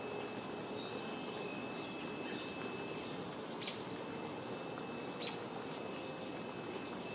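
Outdoor ambience: a steady background hiss with a thin, steady high tone, and a few short, faint bird chirps scattered through it.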